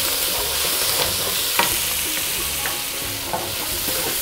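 Chopped onions and garlic sizzling in oil in a frying pan, stirred with a wooden spoon, with a few short knocks of the spoon against the pan.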